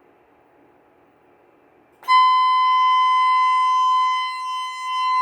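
Voice alarm system's alert (pre-alarm) tone: one steady high tone comes on suddenly about two seconds in after a faint hiss, and holds. It is the first, alert stage of the alarm, which leads into a recorded message that an event has been reported in the building.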